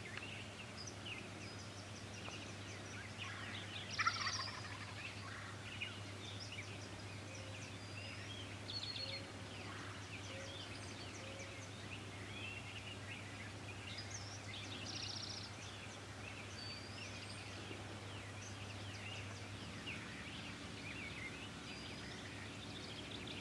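Wild turkey toms gobbling several times, the loudest about four seconds in, with small songbirds chirping around them.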